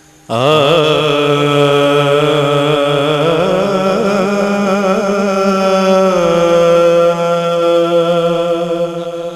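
A man's voice singing a naat (a devotional poem in praise of the Prophet) without instruments. It starts suddenly and holds one long drawn-out note with wavering ornaments, which settles steadier and slightly lower about six seconds in.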